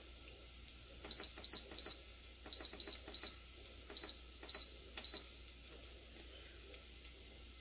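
Instant Pot control panel beeping as its buttons are pressed: about ten short, identical high beeps, each with a faint click, in quick clusters between about one and five seconds in, as the sauté time is raised.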